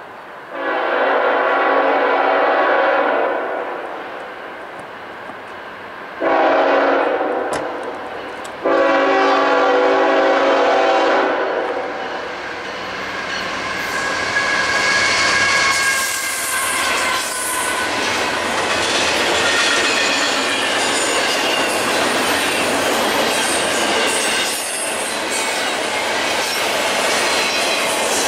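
CSX freight diesel locomotive's air horn sounding three blasts, long, shorter, long, as it approaches. The locomotive then passes and double-stack intermodal well cars roll by with steady rail clatter and high wheel squeal.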